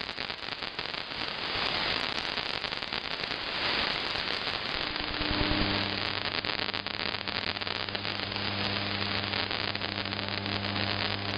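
Shortwave AM broadcast received on a software-defined radio: a steady hiss of static full of fine crackle. About halfway through, a low steady tone with its overtones rises out of the noise as the station's music comes in.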